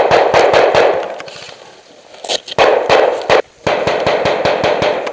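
Airsoft guns firing close by in rapid automatic bursts: three bursts of one to one and a half seconds each, with short breaks between them.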